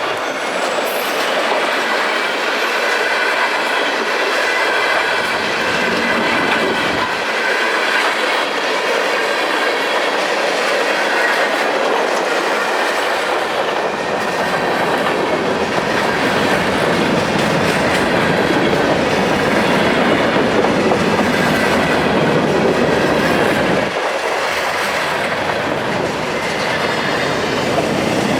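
Freight cars of a passing New York, Susquehanna & Western freight train rolling by on the rails: a steady, loud clatter of wheels over the track with a faint squeal from the wheels. The deep rumble drops away for a few seconds twice and then returns.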